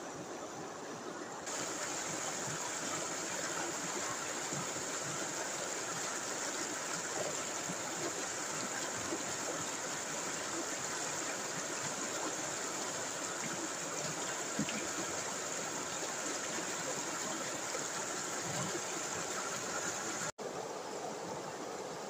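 River rapids: a steady rush of white water tumbling over rocks, stepping up louder about a second and a half in. The sound drops out for a moment near the end.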